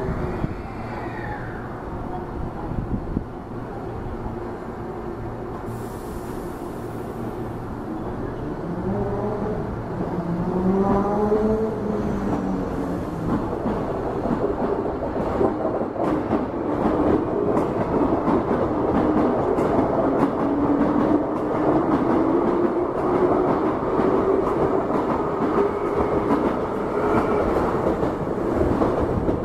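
Hankyu 3300 series electric train pulling away and running past close by. A short hiss comes about six seconds in. Around ten seconds in the traction motors give a rising whine as the train accelerates. After that the sound grows louder, with steady wheel noise and rapid clicks of the wheels over the rail joints as the cars go by.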